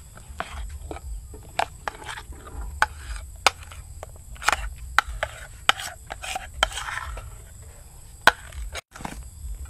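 Spatula scraping and tapping against a glass mixing bowl as thick egg-yolk batter is scraped out: irregular sharp clicks with a few short scrapes.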